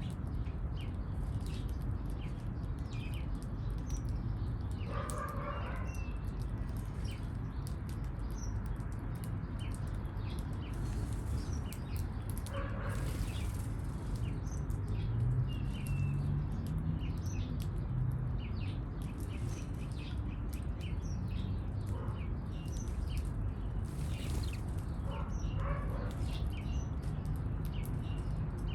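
Birds chirping in short, scattered high notes over a steady low rumble of city background noise, with a few brief louder noisy bursts.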